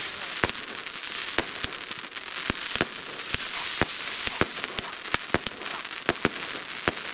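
Many fireworks going off at once: a continuous crackling hiss of burning stars and sparks, broken by sharp bangs of bursting shells and firecrackers at irregular intervals, about three a second.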